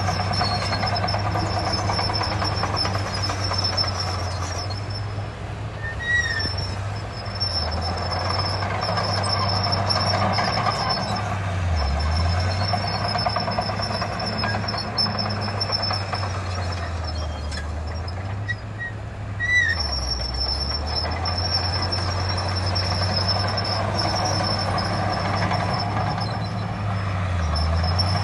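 Heavy diesel earthmoving machinery running steadily. The engine note dips and recovers a few times, around 12 s, 19.5 s and near the end, as the load changes.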